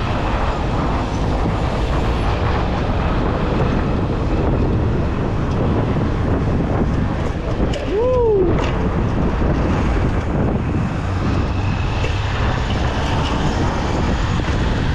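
Steady wind rush on the action camera's microphone while a mountain bike is ridden through street traffic. About eight seconds in, a short tone rises and falls once.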